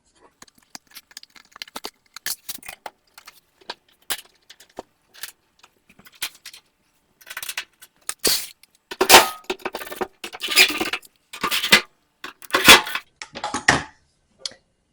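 Metal clinks and rattles of dryer parts and screws being handled and fastened during reassembly: scattered small clicks, then louder rattling clatters about once a second in the second half.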